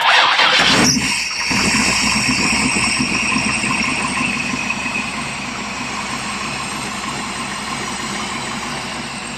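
1954 Chevrolet Del Ray engine, newly fitted with FiTech throttle-body fuel injection, cranking for about a second and firing on the first try. It then settles into a steady idle with a high-pitched whine running over it.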